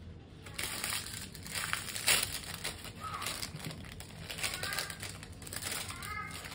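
Clear plastic wrap crinkling and rustling in irregular bursts as it is pulled off a new baseball bat.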